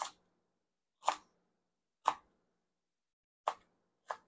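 Kitchen knife cutting through a shallot and knocking on a wooden cutting board: five separate sharp knocks, about one a second.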